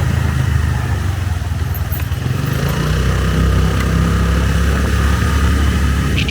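Motorcycle engine running steadily while the bike rides along, with road and wind noise.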